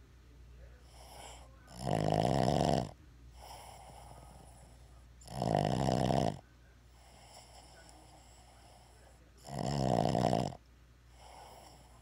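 Boston terrier asleep and snoring: three loud snores, each about a second long and about four seconds apart, with a softer breath between them.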